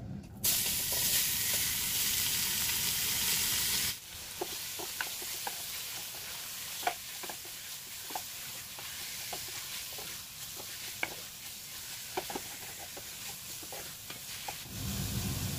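Cubes of beef sizzling in hot olive oil in a stainless steel pot: a loud sizzle for the first few seconds, then quieter frying with the clacks of a wooden spatula stirring the meat against the pot.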